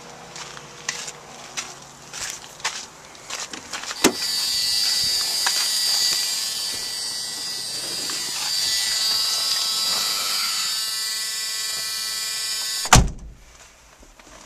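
Scattered light taps, then a click about four seconds in starts an electric motor in a 1981 Dodge Aries wagon. It runs steadily for about nine seconds with a whine and a hiss, and a sharp click about thirteen seconds in cuts it off.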